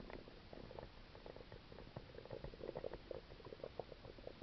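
A human stomach gurgling in an irregular string of small bubbling pops and rumbles, busiest about halfway through. The uploader puts the sounds down to a stomach ulcer.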